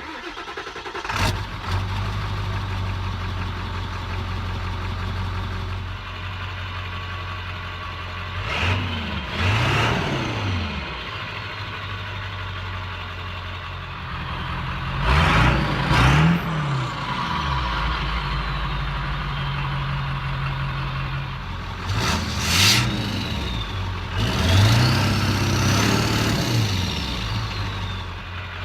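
Ford 7.3 Powerstroke turbo-diesel V8 idling through its exhaust, with several short throttle blips, each a quick rise and fall in pitch. The exhaust changes between stock, straight-piped and 4-inch Diamond Eye with muffler.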